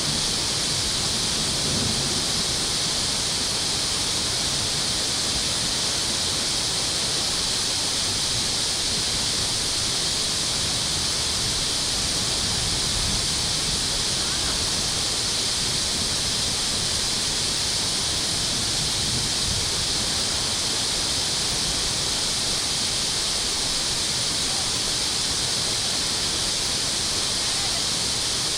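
Steady rushing of water, an even hiss at a constant level with no distinct splashes.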